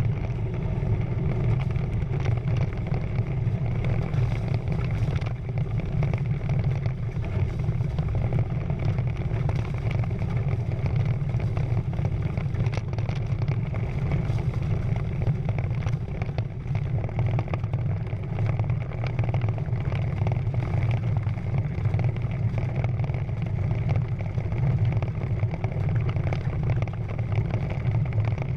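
Water rushing along the hulls of a Prindle 16 catamaran under sail, with wind buffeting the GoPro's microphone: a steady low rumble.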